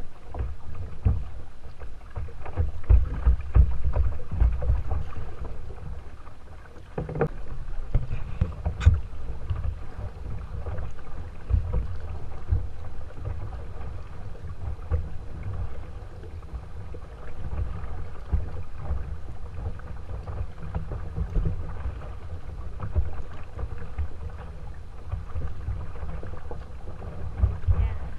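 Water washing and lapping against a kayak's hull on a moving river, with an uneven, gusty low rumble of wind buffeting the action camera's microphone.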